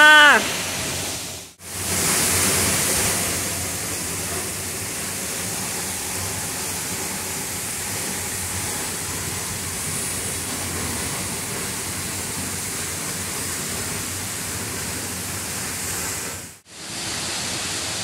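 Misol-Ha waterfall's falling water, a steady rushing hiss, heard from just behind the curtain of water. The sound cuts out briefly twice, about a second and a half in and near the end.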